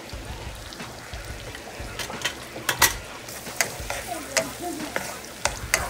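Butter sizzling and bubbling in a stir-fry pan with lemongrass, lime leaf and freshly added minced garlic, stirred by hand. A utensil clicks sharply against the pan several times from about two seconds in, and once more near the end.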